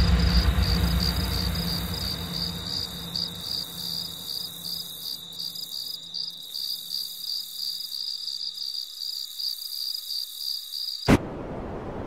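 Crickets chirping in a steady, rapid pulse, used as a cartoon sound effect, over a deep rumble that fades out over the first few seconds. The chirping cuts off suddenly about eleven seconds in, followed by a short click.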